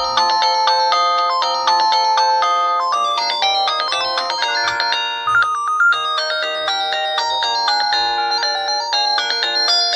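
An LG mobile phone's polyphonic ringtone: a synthesized melody of short, stepped notes with chords, playing without a break, with a quick rising run of high notes about five seconds in.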